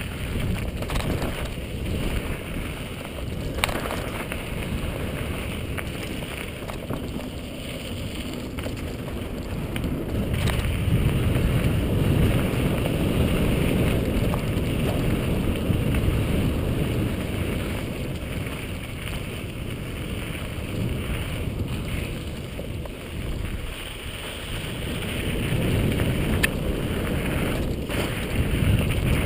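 Mountain bike riding fast down a dirt singletrack: wind buffeting the camera microphone over the rolling of the tyres on dirt, with a few sharp knocks and rattles as the bike hits bumps. The noise grows louder for several seconds around the middle and again near the end.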